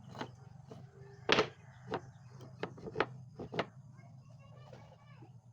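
Pieces of wood being knocked and tapped together: about seven sharp, irregular wooden knocks over the first four seconds, the loudest about a second and a half in, then fainter ones, over a steady low hum.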